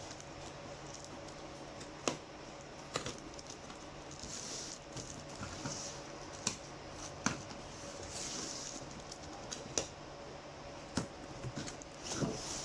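A parcel being opened by hand: scattered sharp clicks and taps, about six of them, with a few soft rustling swells of packaging in between.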